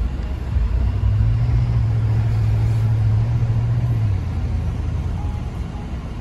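Ram pickup truck's engine running with a steady low rumble, easing off about four seconds in.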